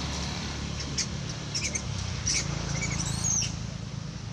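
A handful of short, high-pitched animal squeaks and chirps, a few with small pitch glides, the last and longest coming about three seconds in, over a steady low rumble.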